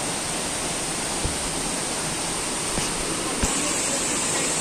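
Steady rush of falling water, an even hiss with no change, and a couple of soft low knocks partway through.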